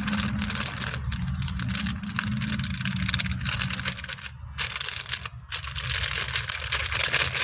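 Cake batter being stirred in a bowl: the utensil makes rapid clicking and scraping against the bowl, over a steady low hum.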